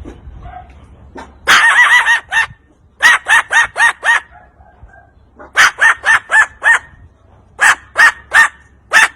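A parrot giving loud runs of short, sharp calls, about four a second, in groups of three to five with pauses between; the calls are animal-like, as in the bird's mimicry of other animals.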